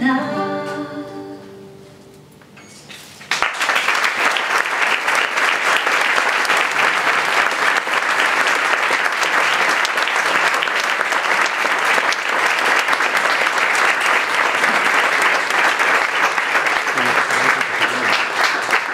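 Two acoustic guitars and a woman's voice end a song, and the last chord rings out and fades. About three seconds in, an audience breaks into steady applause that goes on for about fifteen seconds.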